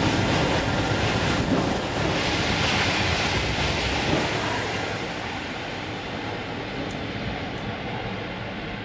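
TGV high-speed train passing beneath at speed and running away down the line: an even rushing noise that fades gradually over the second half.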